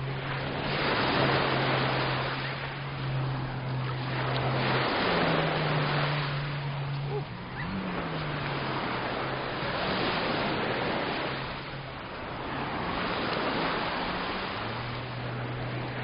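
Sea waves breaking and washing up on a sandy beach, the surf swelling and fading about every four seconds. A low, steady motor hum runs underneath and shifts pitch around the middle.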